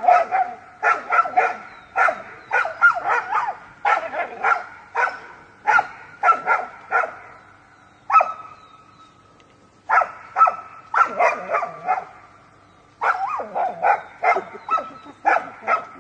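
A dog barking repeatedly in quick runs of several barks, with lulls of a second or two about eight seconds in and again about twelve seconds in.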